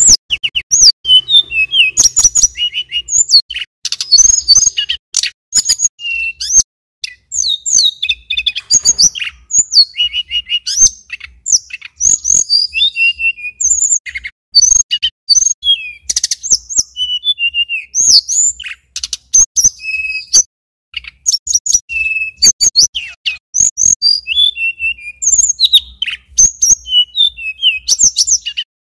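Male tledekan gunung singing continuously in fast runs of high, sharp chirps and short whistled notes, with only brief pauses.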